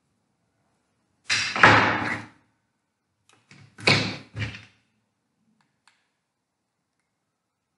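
Two loud bursts of rustling and knocking, each about a second long, as conifer branches are handled on the table close to the microphone.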